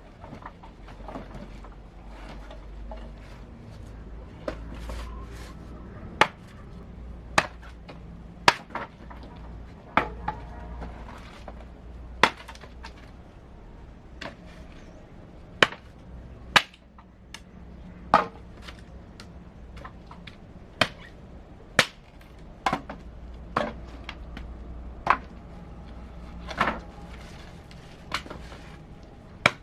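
Repeated sharp chopping strikes on wood at an uneven pace, roughly one every second or two.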